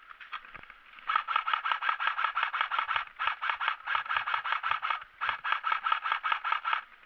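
Airsoft AK-pattern rifle firing on full auto, a fast even stream of about ten shots a second, in three long bursts of about two seconds each.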